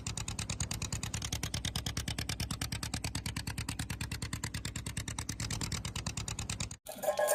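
Fishing boat's engine running steadily with a fast, even beat of about a dozen pulses a second. It cuts off suddenly near the end, and music begins.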